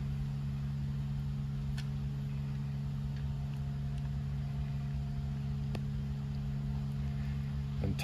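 Steady low machine hum of shop equipment, with a couple of faint light clicks as small brass air fittings are threaded into a transmission shift knob by hand.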